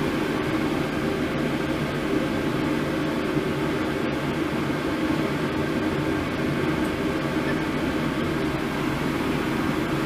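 Steady hum and hiss of a running fan.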